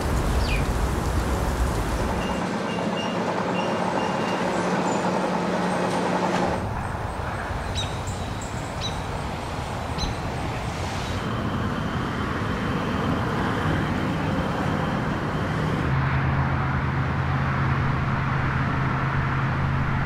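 Urban street ambience field recordings, cut together so the scene changes abruptly every few seconds: steady traffic noise with passing and idling vehicle engines. A few sharp ticks come about 8 to 10 seconds in.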